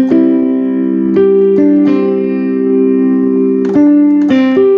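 S-Engine keyboard sound module playing sustained chords on a layered patch: a hammer-action piano sound with a second sustained sound behind it. Each new chord starts with a sharp piano attack, and the chords change several times.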